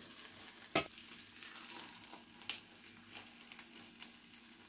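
Chicken pieces sizzling in oil in a frying pan, a steady hiss with scattered small crackles. There is a single sharp knock a little under a second in.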